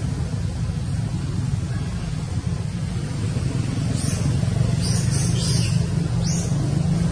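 A steady low rumble with a handful of short, high chirps or squeaks in the second half, the loudest cluster about five seconds in.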